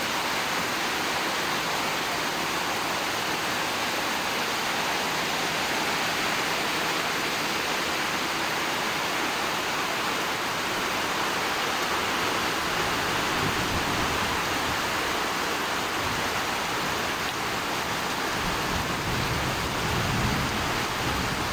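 Heavy rain pouring down in a steady, loud downpour during a strong storm. A low rumble swells twice, once near the middle and again near the end.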